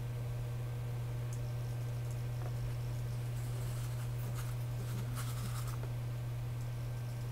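A steady low hum throughout. Faint short whirring bursts come about three and a half to six seconds in, as the two-axis RC servos of the pan-tilt camera mount turn to follow the moving target.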